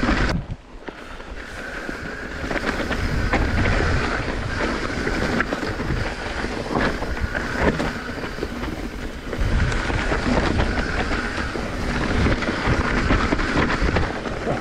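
Mountain bike riding down a leaf-covered dirt trail: the tyres roll and crunch over dry leaves and ground, and the bike rattles with many small knocks over bumps. The noise drops briefly about half a second in, then carries on.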